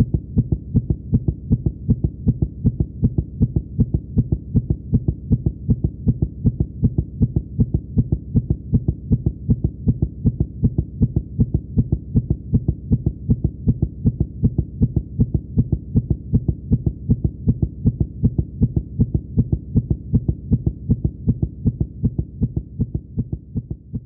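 Fast heartbeat sound effect: a steady, rapid run of low, dull thumps at an even pace, fading out near the end.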